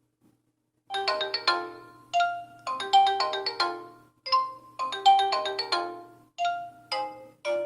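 A Sigma X-Style S3500 sKai phone's loudspeaker playing one of its default ringtones: a quick melody of short, quickly fading notes that starts about a second in and repeats in short phrases.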